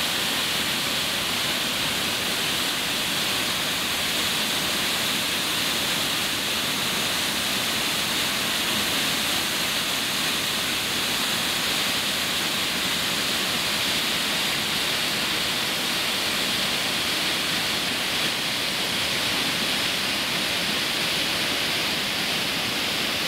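Sol Duc Falls pouring steadily: an even, unbroken rush of falling water with a strong hiss and no change in level.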